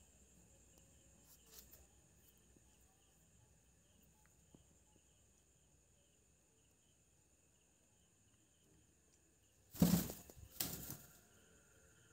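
Two brief bursts of a parakeet's wings flapping, about ten seconds in, over a faint steady high-pitched tone.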